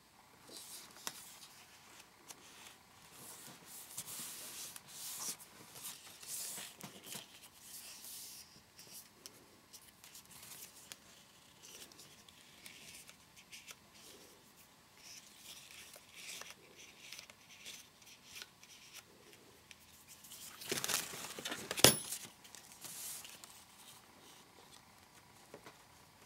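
Paper sheets and cards rustling and scraping as they are handled and pressed onto a page, with short tearing sounds of adhesive tape being laid down. The loudest tearing burst, ending in a sharp click, comes about three-quarters of the way through.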